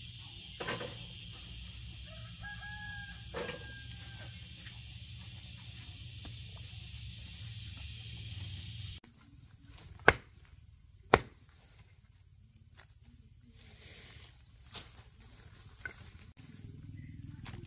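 A rooster crows once, a single drawn-out call about three seconds in, over a steady high hiss. Later come two sharp knocks about a second apart, the loudest sounds here.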